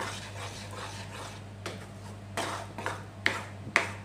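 A spatula stirring and scraping thick ground plantain paste around a kadai, with several sharp scrapes against the pan in the second half. A steady low hum runs underneath.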